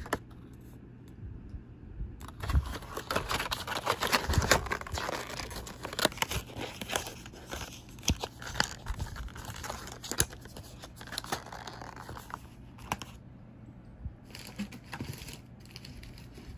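Packaging handled by hand, crinkling and tearing in a dense run of crackles and clicks that starts about two seconds in and eases off after about ten seconds, followed by a few scattered clicks.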